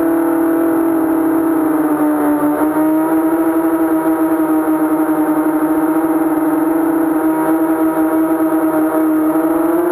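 Mini racing quadcopter's 2206 2000kv T-Motor brushless motors spinning King Kong 5045 propellers, heard close from the onboard GoPro as a loud steady buzzing hum. Its pitch wavers slightly with throttle and climbs a little near the end.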